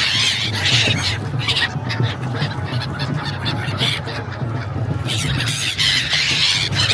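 A flock of birds squawking as they are fed, many short calls overlapping into a continuous clamour, strongest at the start and again near the end, over a low steady hum.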